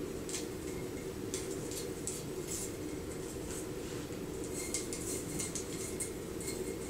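Light ticks, clicks and rustles of spray-painted branches knocking against each other and against a tall glass vase as they are set into it, coming more often in the second half, over a steady low hum.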